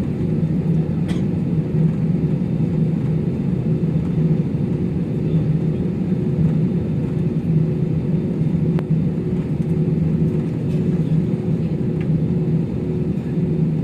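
Steady low rumble and hum of a jet airliner's engines at idle, heard inside the passenger cabin while the plane is on the ground before take-off.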